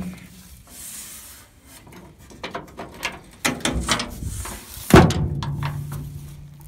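Steel pickup tailgate and its support chains clinking and rattling as they are handled, with one loud metal clank about five seconds in that rings on briefly, as the gate is shut.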